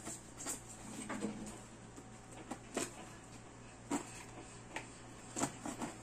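Scissor tips scratching and picking at packing tape on a cardboard box: irregular short scrapes and clicks, a few sharper ones about three, four and five and a half seconds in.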